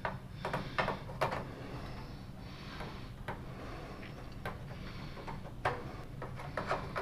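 Irregular plastic clicks and knocks as a 4-foot T8 LED tube is handled into a fluorescent fixture's end sockets and turned to seat its pins, over a low steady hum.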